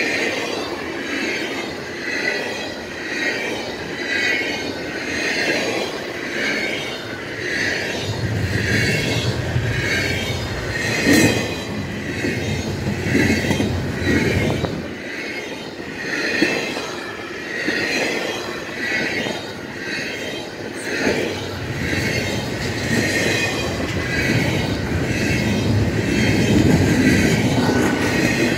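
Intermodal freight train cars rolling past on the track, their wheels clicking in a steady repeating rhythm a little over once a second, with some wheel squeal over a continuous rolling rumble.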